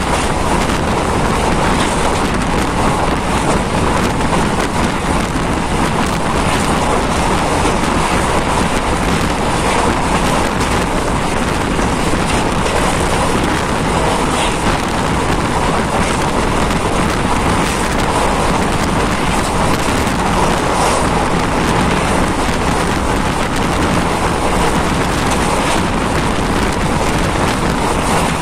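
Steady rushing of wind and running noise from a moving vehicle, loud and unbroken throughout.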